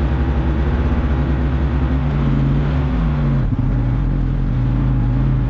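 A vehicle engine running steadily while driving, its note changing about three seconds in.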